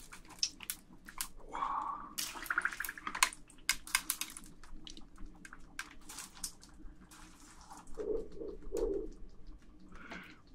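Water poured onto dry ice in a glass dish, bubbling and gurgling as the dry ice turns to fog, with many small crackles and pops throughout. There is a denser stretch of bubbling a couple of seconds in and low gurgles near the end.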